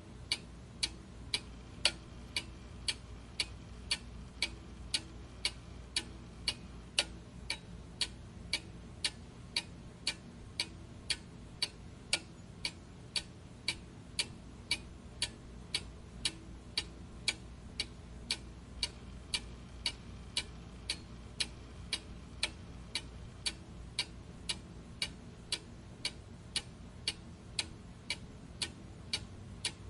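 Mechanical clock ticking steadily, about two sharp, even ticks a second.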